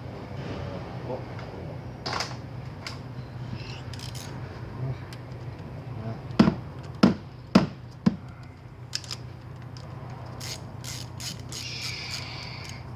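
Ratchet wrench and metal tool clicks while the 10 mm screw holding a new ignition coil is run in and tightened, three sharp clicks in the middle standing out and a quick ratcheting rattle near the end, over a steady low hum.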